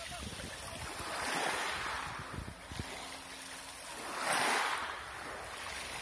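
Small Black Sea waves washing onto a pebble beach, the surf swelling twice about three seconds apart as each wave breaks on the shingle.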